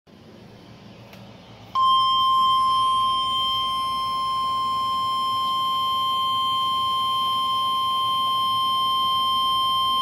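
Midland weather radio's speaker sounding the NOAA Weather Radio 1050 Hz warning alert tone: one steady high tone that starts about two seconds in and holds, the signal that a warning broadcast is about to follow.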